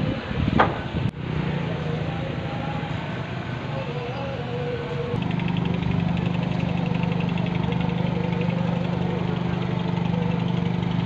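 An engine idling steadily with a low hum, a little louder from about five seconds in.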